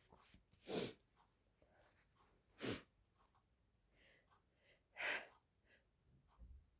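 A woman's short, sharp bursts of breath through the nose, three of them about two seconds apart, during a sneezing fit that she puts down to getting sick rather than to allergies.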